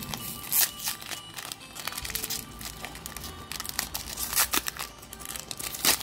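Foil booster-pack wrapper crinkling and tearing in the hands as a trading-card pack is opened, with a few sharp crackles. The loudest come just after the start and near the end. Faint background music plays underneath.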